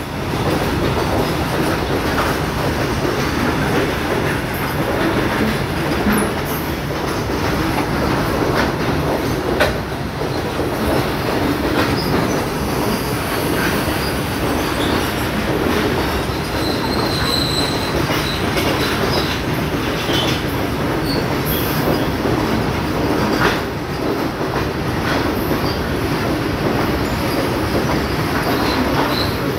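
Goods train of covered box wagons rolling past at close range: a steady rumble of steel wheels on the rails, with scattered clacks over rail joints and a brief high wheel squeal about halfway through.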